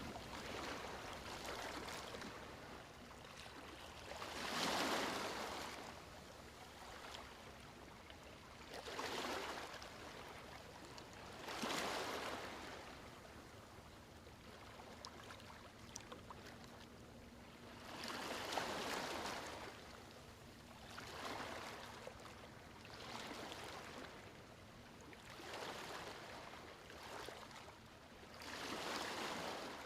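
Rushing water noise that swells and fades in surges every few seconds, with the loudest surges a little after the start, about a third of the way in, and near the end.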